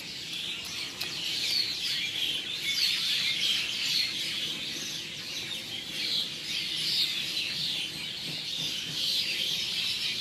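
A dense chorus of many small birds chirping and twittering at once, a busy, unbroken clamour of overlapping calls.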